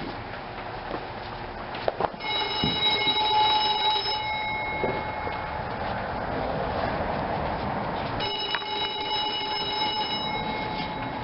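A small power tool running with a steady high-pitched whine over a rough grinding noise, the whine fading out midway and returning about eight seconds in; it is most likely shaping the old face-shield plastic for the toy car's windshield.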